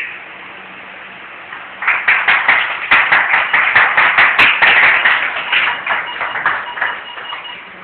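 A small group applauding. The clapping starts about two seconds in, builds quickly, and dies away near the end.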